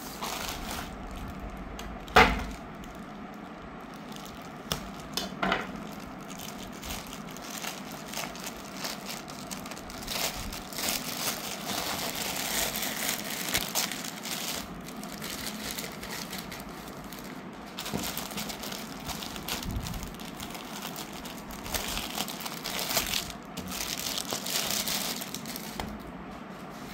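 Plastic mailer bag and a T-shirt's plastic sleeve crinkling and rustling as they are opened and handled, in stretches that come and go. A sharp snap about two seconds in is the loudest sound, with a smaller one a few seconds later.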